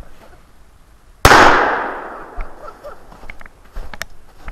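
A single shotgun blast from a Remington 870 12-gauge pump-action, fired about a second in, with a long fading tail.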